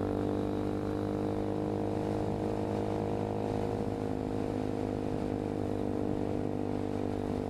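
Hawk 250 motorcycle's single-cylinder four-stroke engine running at a steady cruising speed, an even drone that holds the same pitch throughout.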